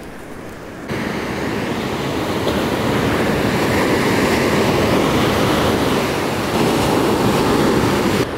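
Ocean surf breaking on a sand beach: a continuous rushing wash of waves, stepping up abruptly in loudness about a second in.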